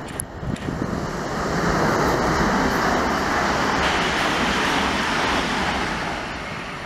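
Electric multiple-unit passenger train passing close by, a broad rushing rumble of wheels on rails that swells about a second and a half in, holds, and eases off near the end.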